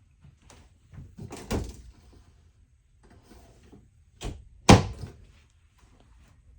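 An RV's interior door being handled: a brushing, scraping sound about a second and a half in, then a click and a loud, sharp knock a little past halfway.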